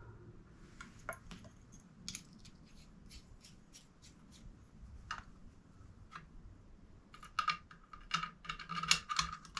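Light metallic clicks and scrapes of small steel rifle parts being handled, then a quicker run of sharper clicks in the last two seconds as a threaded rod and the tailpiece are worked into the back of a Browning BAR's receiver.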